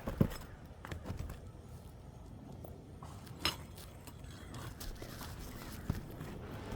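A few sharp metal clicks and knocks from roofing tools prying nails out from under asphalt shingles: the loudest just at the start, another about three and a half seconds in, and a fainter one near the end, over faint low background noise.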